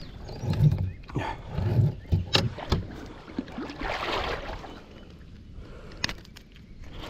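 Water splashing and sloshing around a kayak, with a couple of muffled thumps early on and a few sharp knocks on the hull.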